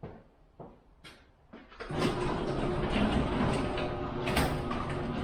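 A few light clicks, then about two seconds in a garage door opener starts running and the sectional door rolls along its tracks with a steady rattling hum.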